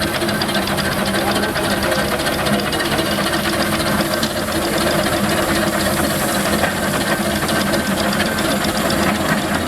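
Engine running steadily, with a fast, even mechanical clatter over a steady hum and a hiss.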